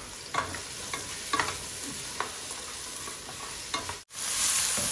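Wooden spatula stirring chopped onions frying in a metal pot: a few scrapes and knocks against the pot over a low sizzle. After a brief break about four seconds in, the sizzling is louder.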